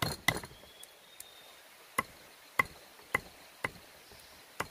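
A series of sharp knocks or chops, each with a short ringing ping: two at the start, then after a pause four more about half a second apart and a last one near the end.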